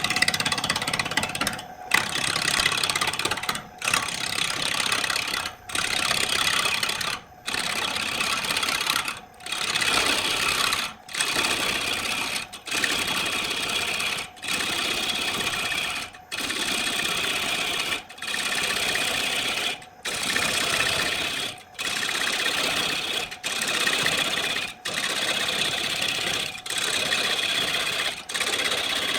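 A power woodworking tool cutting wood in regular repeated passes: about seventeen bursts, each roughly a second and a half long with a brief break between them.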